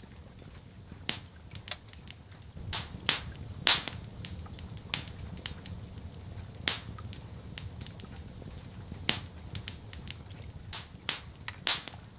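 Wood fire in a fireplace crackling, with irregular sharp pops and snaps, several louder ones scattered through, over a steady low rumble of the flames.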